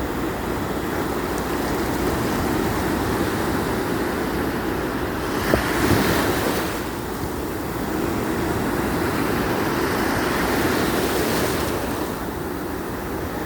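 Wind rushing steadily, swelling in gusts about five seconds in and again a little later, with one sharp click near the first gust.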